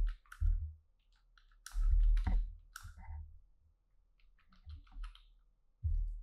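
Typing on a computer keyboard: irregular keystrokes as a short phrase is entered. There is a louder, longer noise about two seconds in.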